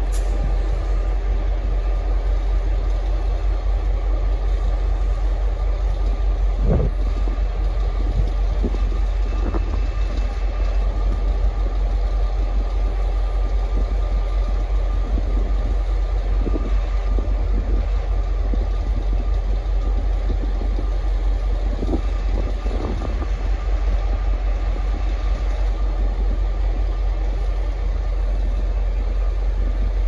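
V/Line N class diesel-electric locomotive running as it creeps slowly along the tracks hauling passenger carriages: a steady low engine rumble, with a few knocks and clicks from the wheels and rails.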